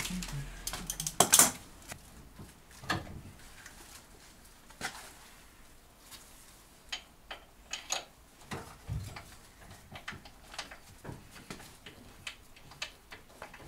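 Scattered metallic clinks and knocks of hand tools and engine parts being worked in an engine bay as an engine-mount bolt is being lined up, with one loud clank about a second in.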